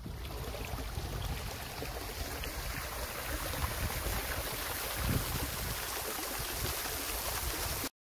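A small rocky stream running and gurgling close by, a steady rush of water with a deep rumble underneath; it cuts off suddenly near the end.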